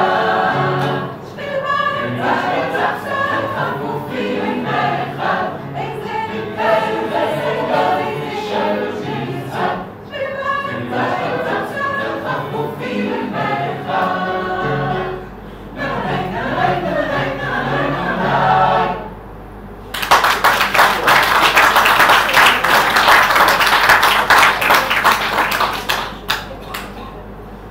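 Mixed choir of men and women singing; the song ends about two-thirds through, and after a brief pause the audience applauds for about six seconds.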